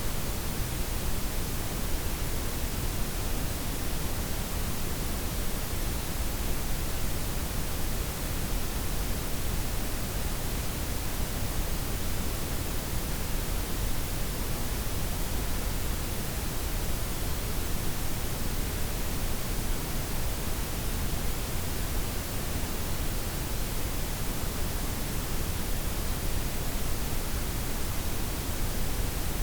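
Steady synthetic noise, a blend of white, pink and brown noise with the highs softened, running without change.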